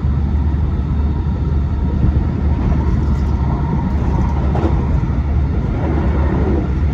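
Hankyu 2300 series electric train heard from inside the passenger cabin while running at speed: a steady low rumble of wheels on rail with running noise.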